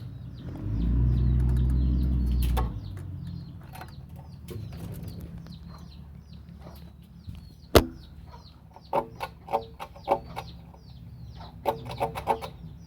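Chickens clucking in two short runs of calls in the second half, over a thin high chirping that keeps repeating. A loud low hum lasts about two seconds near the start, and a single sharp click comes about halfway through.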